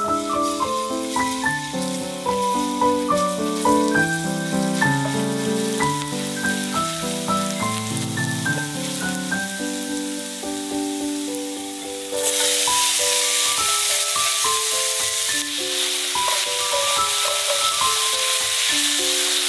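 Food frying in oil in a hot pan: a steady sizzle starts suddenly about twelve seconds in and keeps going. Soft piano background music plays throughout.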